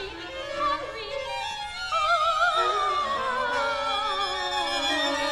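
Chamber music for soprano and string ensemble. About two seconds in, a long wavering note starts sliding slowly downward over held string notes.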